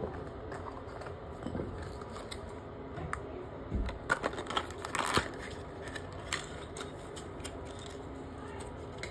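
Hands handling a plastic faucet stem and other small parts: scattered light clicks and rustling, with a close cluster of louder clicks and knocks about four to five seconds in and one more click a little after six seconds.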